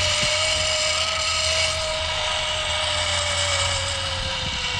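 Zip line trolley's pulley wheels whirring along the cable: a steady whine that sags slightly in pitch near the end as the ride slows.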